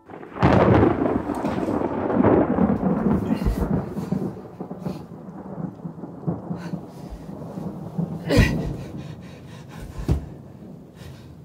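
Thunderstorm sound: a loud clap of thunder about half a second in that rolls on and slowly fades under a rain-like hiss, with two more sharp cracks near the end.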